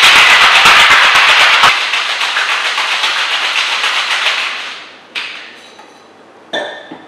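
Ice rattling hard inside a Boston shaker (metal tin over mixing glass), shaken vigorously in a fast, even rhythm for nearly five seconds before fading out. Two sharp knocks follow near the end.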